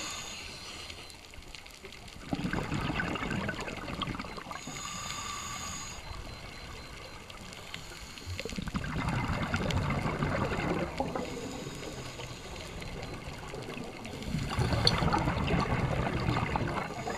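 Scuba diver breathing underwater through a regulator: a steady hiss with a whistling tone on each inhale, then a long bubbling gush of exhaled air, in a slow cycle about every six seconds. Three exhales are heard.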